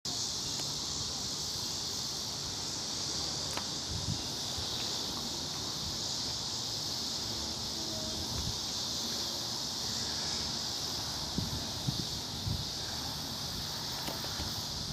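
Steady late-summer evening chorus of insects, a constant high-pitched shrilling with no break, with a few faint low knocks about four seconds in and again near the end.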